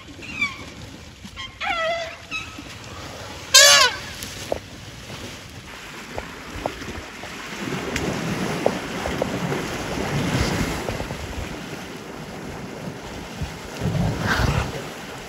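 Elephants call with a few short, wavering squeaks and trumpets in the first four seconds, the loudest a brief trumpet near four seconds in. Then elephants wade and splash through river water, the splashing building and surging louder near the end.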